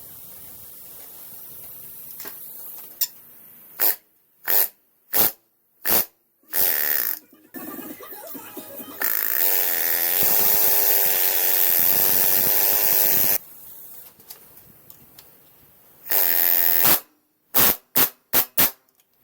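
Pneumatic rivet gun (air hammer) firing in short bursts, a longer run of about four seconds in the middle, then a quick string of short bursts near the end.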